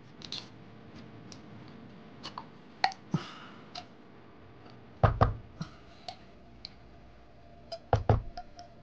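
Metal can of condensed cream of chicken soup being tapped and knocked over a plastic mixing bowl to shake the soup out: scattered light clicks and taps, then heavier thumps about five seconds in and again near the end.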